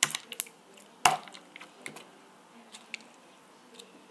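Slime being squished and pressed by hand, making irregular sharp wet clicks and pops, the loudest at the start and about a second in, then fainter scattered ones.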